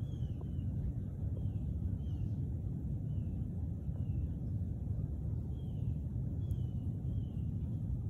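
Outdoor background: a steady low rumble with a bird's short, faint falling chirps repeating irregularly about once or twice a second.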